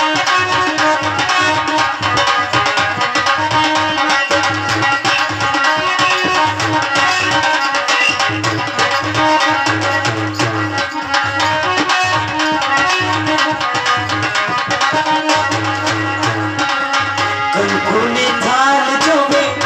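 Live Indian folk music: a steady hand-drum rhythm under sustained melodic reed or keyboard tones. A voice comes in singing near the end.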